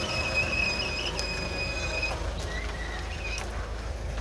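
Off-road SUV crawling slowly over a muddy forest track: a low engine rumble runs under a high, steady squeal that stops about two seconds in, followed by two short squeaks.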